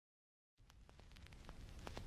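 Silence, then about half a second in a faint crackling patter of scattered ticks over a low rumble fades in and grows louder: the rain-like opening of a background music track.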